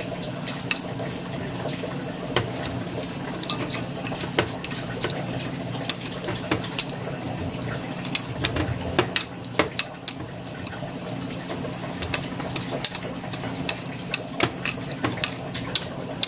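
A plastic measuring spoon stirring a cornstarch-and-water slurry in a bowl, with irregular clicks and taps of the spoon against the bowl over a steady low hum.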